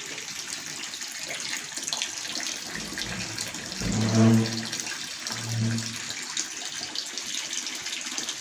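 Steady rain falling, an even hiss with fine pattering. A person hums twice, briefly, about four and five and a half seconds in.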